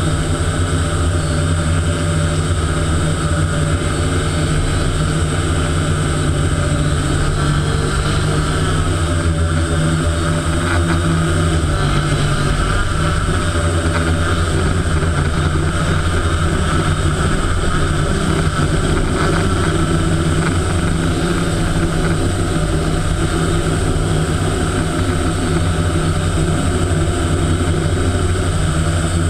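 Motors and propellers of a small camera-carrying drone in flight: a steady buzzing hum whose pitch shifts slightly about twelve seconds in.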